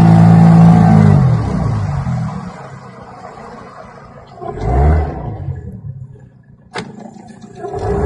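The wooden riverboat's motor revs up and then eases off after about a second, dropping to a much quieter running sound. It gives one more short rev about five seconds in, and a single sharp click comes near the end.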